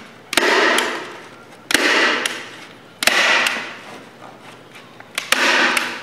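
Manual staple gun firing four times, each a sharp snap with a short echo, driving staples through the new target face into the target's frame.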